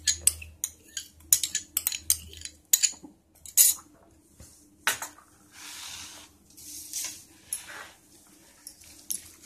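Metal spoon clinking and tapping against bowls while curd is scooped into a bowl of chopped cucumber and onion. A quick run of sharp clicks comes first, then two soft rushes and a few scattered taps near the end.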